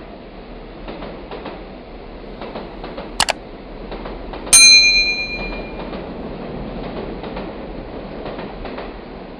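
Train running past on the rails, a steady rumble with wheels clicking over the rail joints. About four and a half seconds in comes a sharp, loud metallic ring that fades within a second.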